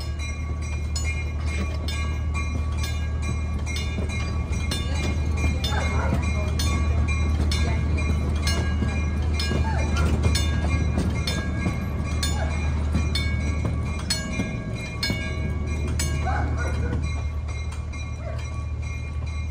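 A railroad crossing signal bell, on the wig wag signal, rings with evenly repeated strokes over the steady low rumble of a miniature passenger train running on its rails.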